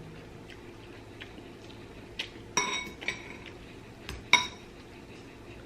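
Utensil clinking against a bowl of noodles: a few light taps, two of them ringing clearly, about two and a half and four and a half seconds in.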